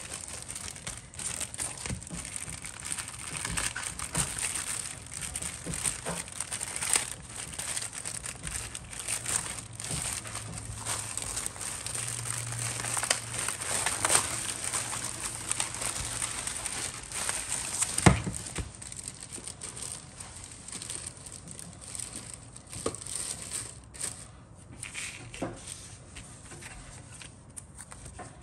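Thin clear plastic bag crinkling and rustling as hands open it and pull out the paper sheets inside, with one sharp knock about two-thirds of the way through. The crinkling thins out over the last few seconds.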